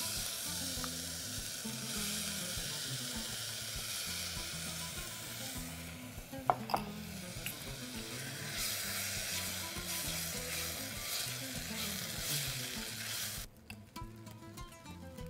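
Rice sizzling in a hot pot as beetroot purée is stirred into it. The hiss stops abruptly near the end, and a single clink comes about six and a half seconds in.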